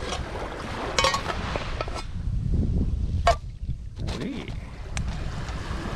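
Wind buffeting the microphone, with several sharp metallic clinks, one briefly ringing, as the lid of an aluminium mess tin is lifted off and handled.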